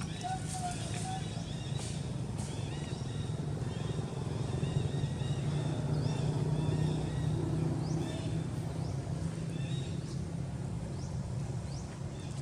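A steady low engine-like hum runs throughout, a little louder in the middle, with many small high chirping calls over it and a few short rising squeaks near the end.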